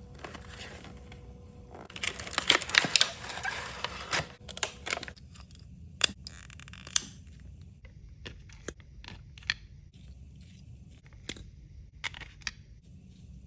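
Packaging being handled and torn open: a burst of rustling and tearing about two seconds in, then scattered sharp clicks and taps.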